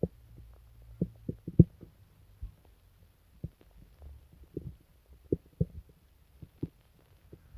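Human stomach of someone with an upset stomach, making short, irregular low pops and gurgles, about a dozen over several seconds, over a faint steady low hum.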